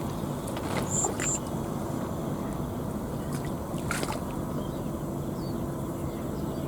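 Water sloshing and gurgling at the river's edge over a steady low hum, with a few light clicks and two short high chirps about a second in.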